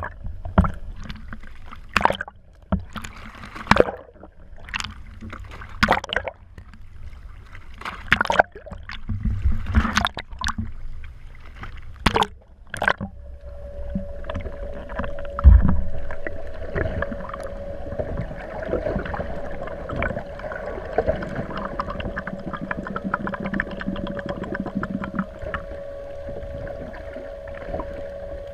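Small fishing boat on the water: irregular knocks and clunks for the first half, then a steady whine sets in and runs on, with one heavy thump shortly after it starts.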